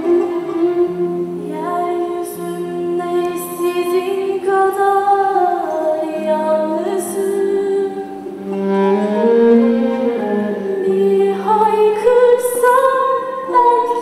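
A young woman singing a song with long held, wavering notes, over instrumental accompaniment.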